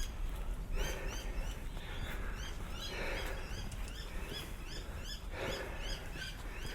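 Birds chirping: short rising chirps repeating several times a second over a steady low rumble, with soft noisy swells about once a second.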